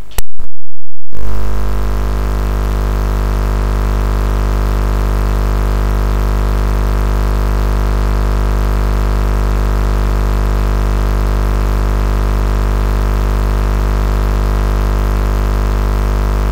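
An engine idling steadily: a low, even drone that starts about a second in and holds without change.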